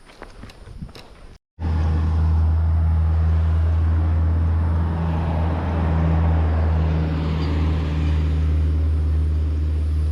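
Motor vehicle running with a steady low drone and road noise, cutting in abruptly about a second and a half in, after a few faint clicks and a moment of silence.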